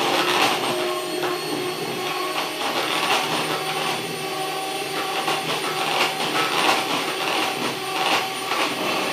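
Electric hand mixer running steadily, its beaters whipping an ice-cream mixture of whipping cream and milk in a bowl.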